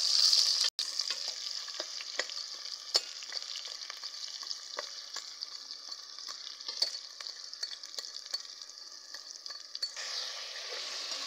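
Sliced onions sizzling in hot ghee in a metal pot. The sizzle is loudest just after they go in and rises again near the end. A metal ladle stirs through them, clicking against the pot now and then.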